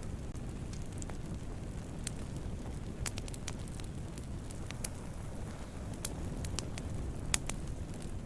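Wood fire burning, with a steady low rumble and irregular sharp crackles and pops, the loudest pop near the end.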